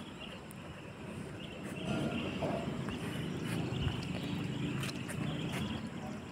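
Faint, irregular footsteps and scuffs on a concrete floor, over a low background hum.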